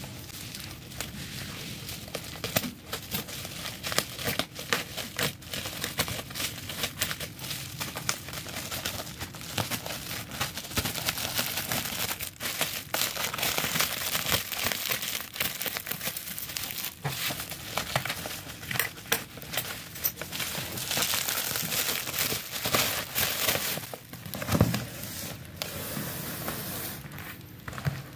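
Black plastic bubble wrap being torn open and crumpled by hand: continuous crinkling and crackling with many sharp clicks, and a bump near the end.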